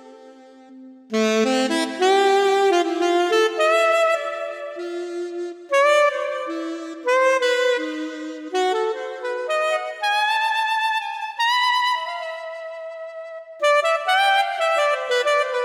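Yamaha PSR-SX900 arranger keyboard playing a sampled saxophone voice: a solo melody of held notes with vibrato, starting after a short pause about a second in and ending in a descending run of notes.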